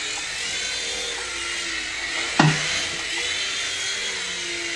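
Small remote-control helicopter's electric motor and rotors whirring steadily, the pitch rising and falling slightly with the throttle, with a single short knock about two and a half seconds in.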